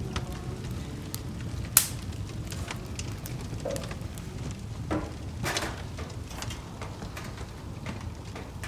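Wood fire crackling in a wood-burning stove, with scattered sharp pops, one much louder about two seconds in. A few knocks around the middle as split wood is fed onto the fire.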